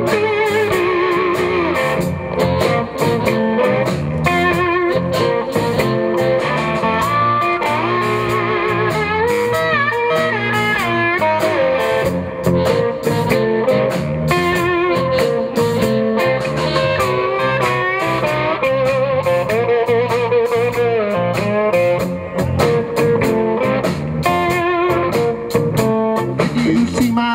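Live blues band playing an instrumental passage: an electric guitar lead with wavering, sliding notes over bass guitar and drums.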